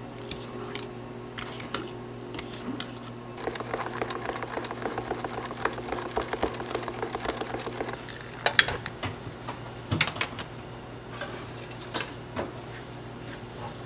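Metal whisk beating egg tart filling in a metal saucepan: a dense run of fast clicking and scraping against the pan for several seconds, then a few separate sharp metal knocks. A steady low hum runs underneath.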